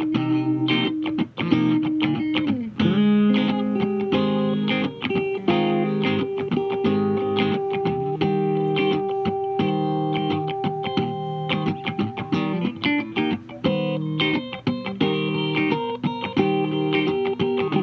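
Electric guitar played through a small Fender combo amplifier: picked notes and chords. About two and a half seconds in, a note slides down, and then one note is held for several seconds before the picking picks up again.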